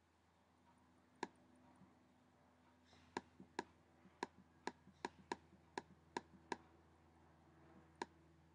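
Faint clicks of a computer's pointing-device button, pressed over and over on a scroll arrow: one click about a second in, a run of about nine between three and six and a half seconds in, and one more near the end. Many presses are followed by a weaker release click.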